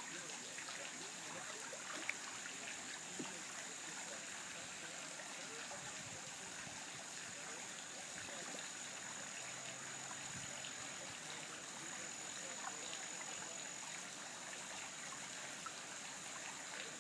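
Pool water trickling and churning at the pool steps around a standing dog, with a couple of light splashes about two and three seconds in.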